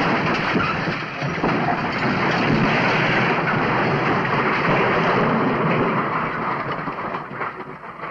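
A loud, dense crashing and rumbling sound effect that bursts in suddenly out of silence, holds steady, and starts dying away near the end.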